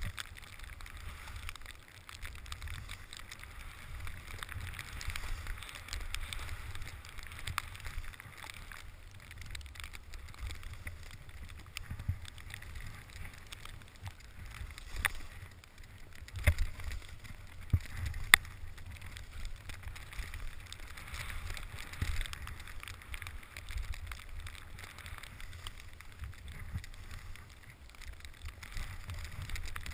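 Wind buffeting a body-mounted camera's microphone over the hiss of a ride down a slope of heavy wet snow, with a few sharp knocks about fifteen to eighteen seconds in.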